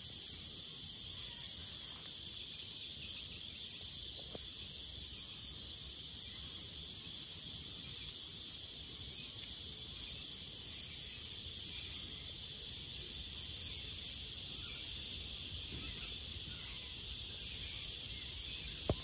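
A steady, high-pitched chorus of insects, with a low rumble underneath and one sharp click near the end.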